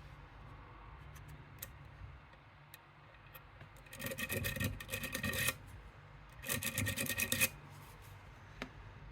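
Lock pick scraping and rubbing in the keyway of a Medeco M3 pin-tumbler lock, in two spells of a second or so each, with a few small metallic clicks between them.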